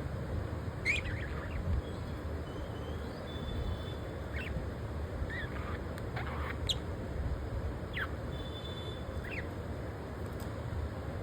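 Budgies giving short, scattered chirps and squawks, about six in all, with a few faint thin whistles between them, over a steady low hum.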